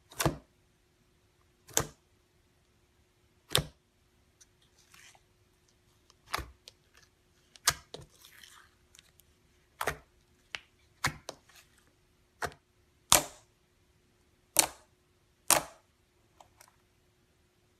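Fingers pressing and poking into thick slime, making sharp pops and clicks as trapped air bursts, about one a second but unevenly spaced. A softer crackling comes twice between them.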